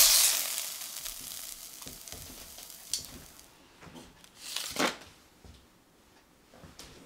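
Chicken breasts sizzling in hot oil in a stainless steel frying pan, the sizzle fading over about the first second. A light tap follows, then just before the five-second mark a short metallic scrape and clink as metal tongs set the chicken down on a metal baking tray.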